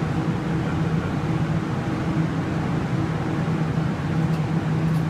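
A steady low hum with a faint hiss under it, holding one even pitch without change.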